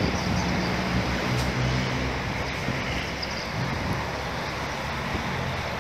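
Steady outdoor road-traffic noise with wind on the microphone, and a low engine hum underneath.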